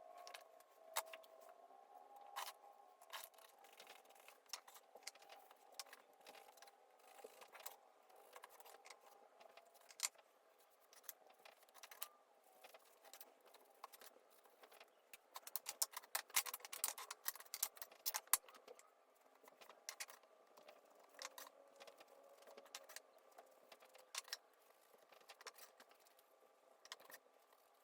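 Scattered light clicks and taps, busiest about halfway through, over a faint steady hum.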